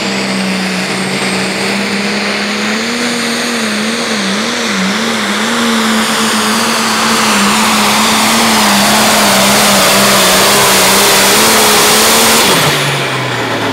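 Turbocharged diesel engine of an International pro stock pulling tractor at full throttle under load as it drags the sled. Its note wavers about three to five seconds in, and it grows louder, with a rising high hiss, before the pitch falls away near the end as the throttle comes off.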